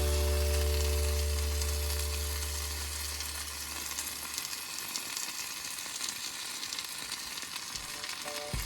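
Food sizzling as it fries, a steady crackling hiss with no pause. A low held music chord fades out under it over the first four seconds or so.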